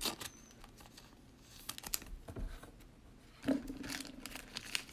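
Soft rustling, crinkling and light clicks of trading cards and their plastic wrapping being handled, with a short low hum about three and a half seconds in.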